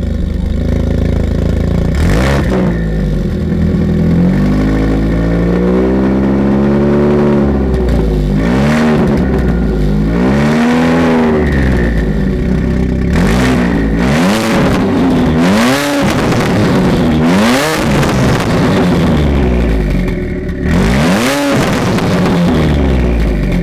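Tuned Ford Focus RS Mk3's 2.3-litre turbocharged four-cylinder, built to about 650 PS, being revved while standing. There is one long slow sweep up and down, then a string of quicker, sharper blips, about nine in all, with short sharp cracks from the exhaust around several of the rev peaks.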